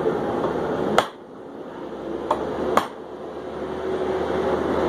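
Hammer blows on a 3/8-inch steel bar at the anvil during a blacksmith's set down: a sharp strike about a second in, a lighter tap and another strike near the middle. A steady rushing noise runs underneath.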